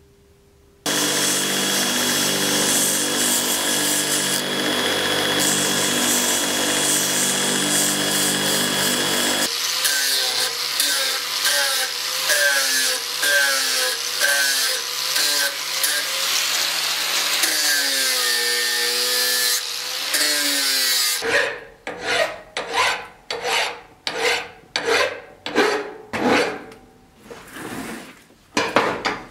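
Angle grinder grinding a steel block clamped in a vise: it starts about a second in with a steady whine, then its pitch wavers up and down as the disc is pressed into the steel. In the last eight seconds it gives way to a run of separate rasping strokes, about one and a half a second.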